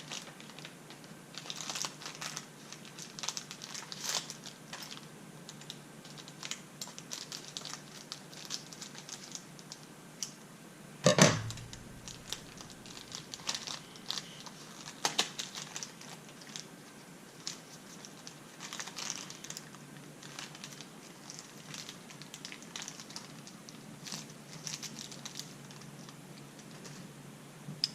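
Toy packaging crinkling and rustling in small irregular bursts as it is worked open by hand, with one loud sharp knock about eleven seconds in.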